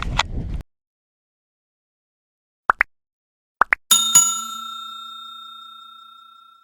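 Sound effect at the end of the video: two pairs of short rising chirps, then a single bell ding about four seconds in that rings and fades slowly away. Before that, a brief rustle of handling noise cuts off abruptly.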